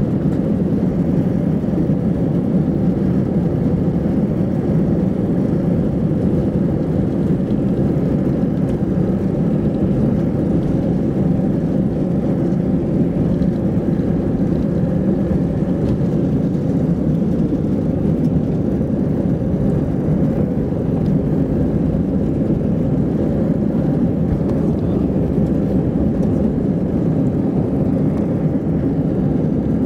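Cabin noise of an Airbus A319 during take-off and the first climb: the twin turbofan engines at take-off thrust make a steady, loud, deep roar heard from inside the cabin.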